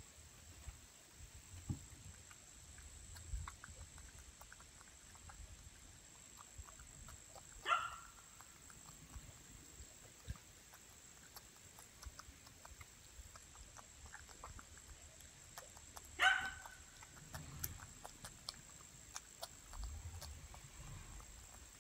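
Groundhog chewing a piece of peach at close range: faint, irregular chewing clicks and smacks. A dog barks once about eight seconds in and again about sixteen seconds in; these barks are the loudest sounds.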